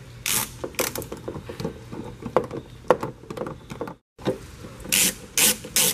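A 3/8-inch drive ratchet with a T30 Torx bit tightening the tail light mounting bolts: a series of short ratcheting strokes and clicks, broken by a brief gap, then a quicker run of strokes about three a second.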